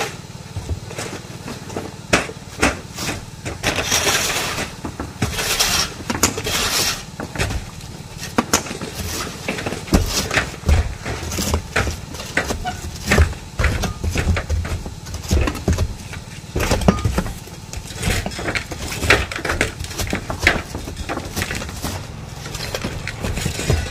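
Roofing work on asphalt shingle roofs: many irregular knocks and taps, with a stretch of scraping about four to seven seconds in, over a steady low engine hum.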